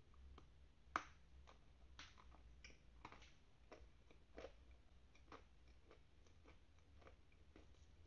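Faint crunching and chewing of a dense, dusty chunk of edible clay (the 'velvet' variety): short crisp crackles about twice a second, the loudest a sharp crack about a second in.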